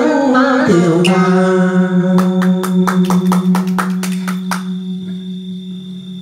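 The singer's last phrase ends about a second in, and a low electric-guitar note rings on and slowly fades, closing a southern Vietnamese đờn ca tài tử song. A listener claps about a dozen times, about five claps a second, for a couple of seconds.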